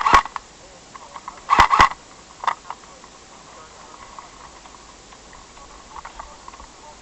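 Airsoft guns firing: a quick pair of sharp shots at the start, another pair a second and a half later and a single shot about a second after that.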